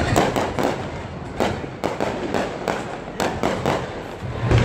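Aerial firework shells bursting one after another in a string of sharp bangs, with the heaviest, deepest boom near the end.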